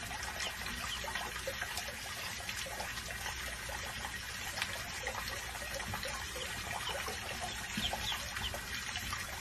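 Water running from a kitchen faucet's spray head into a filled sink, with ducklings giving repeated short, high peeps over it.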